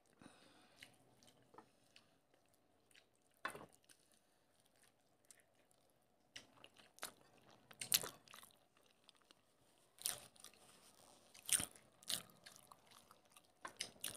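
Faint mouth sounds of eating: chewing and lip smacks, with fingers mixing rice and curry on plates. A few louder, sharp clicks stand out among the scattered smaller ones.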